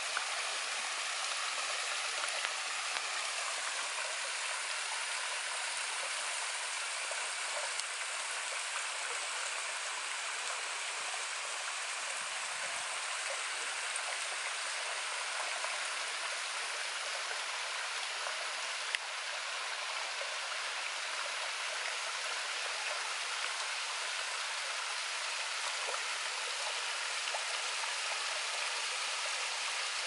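Small waterfall: thin streams of water falling and trickling down a steep rock face into a pool, with a steady, even rush of water.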